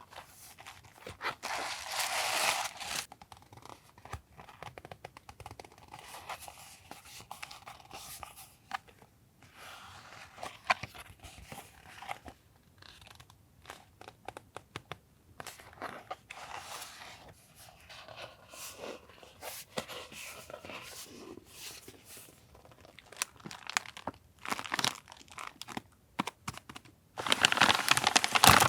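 Packaging being handled and opened: crinkling, rustling and tearing, with small taps and clicks. There are longer, louder stretches of crinkling about two seconds in and near the end.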